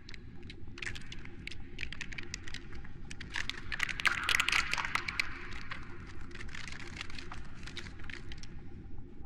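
Suspense sound effect: a low rumble under dense crackling and clicking. The crackles thicken and get loudest around the middle and thin out near the end, over a faint steady high hum.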